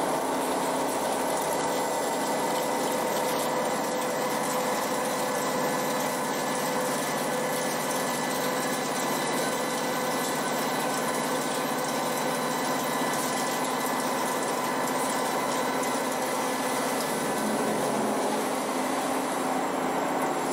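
Toshiba BTD-110H.R16 horizontal boring mill running with its spindle turning a disc-shaped cutter: a steady machine hum with several steady high tones.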